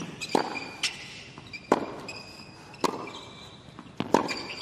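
Tennis rally on a hard court: four sharp racket strikes on the ball, about one every second and a quarter, with shoes squeaking on the court between shots.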